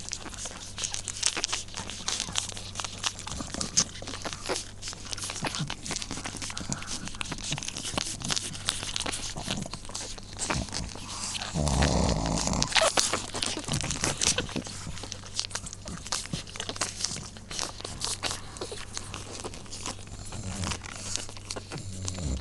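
Two-week-old pug puppies stirring in a pile close to the microphone: dense small crackles and snuffles of fur and bodies moving. A louder, deeper noise lasts about a second and a half near the middle.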